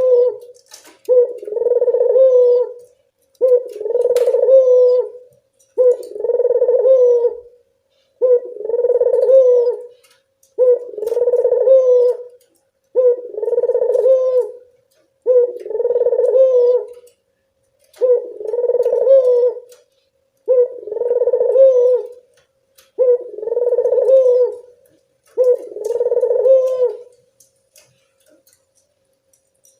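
Barbary dove cooing: about a dozen rolling coos, each lasting a second and a half to two seconds, repeated at an even pace with short gaps, stopping near the end.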